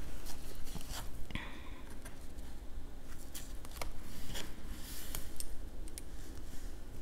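Glass microscope slides being handled on a table: a series of light clicks and taps as they are picked up and set down, with brief scraping as a black card cover is slid underneath them.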